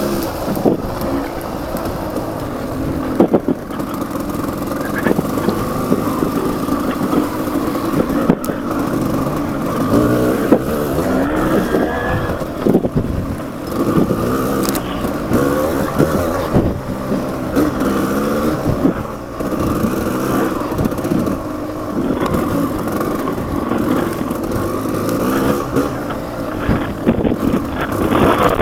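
Off-road motorcycle engine revving up and down as the throttle is worked over rough trail, with a few sharp knocks from the bike hitting bumps.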